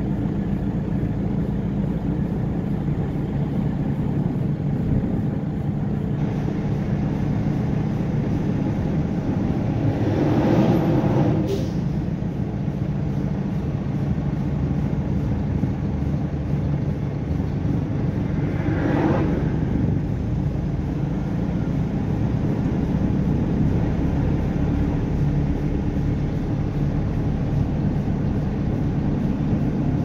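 Truck engine running steadily at cruising speed, heard from inside the cab, with road noise. Two brief swells in the noise come about a third of the way in and near two-thirds, and there is a short click just after the first.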